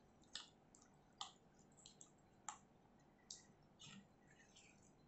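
A silicone spatula stirring thick custard with fruit pieces in a nonstick pan: about seven faint, wet clicks at uneven intervals.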